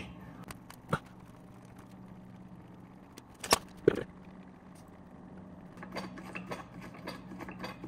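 Hand pump on a gear-oil bottle being worked to fill a car differential: scattered plastic clicks, two sharper ones around the middle, and a run of quick light ticks near the end, over a steady low hum.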